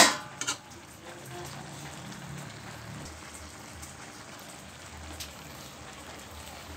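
A metal ladle knocks sharply against the metal pan twice at the start. A steady soft hiss follows.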